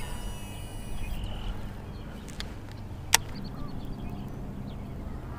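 Baitcasting reel's spool whirring with a high whine for about a second as a vibrating jig is cast. About three seconds in there is a single sharp click, typical of the reel being engaged to start the retrieve.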